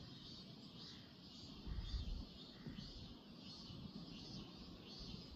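Outdoor nature ambience: a steady, softly pulsing high chorus of insects, with a low rumble that swells about two seconds in.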